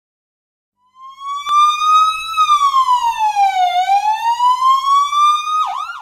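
A siren wailing: its pitch climbs, falls and climbs again in slow sweeps of a second or two, then gives a couple of quick yelps and cuts off.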